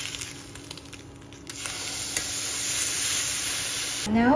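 Steak sizzling in a frying pan as it sears, cooked by the cold-sear method, put into the pan cold and then heated. The sizzle is faint at first and grows louder about a second and a half in.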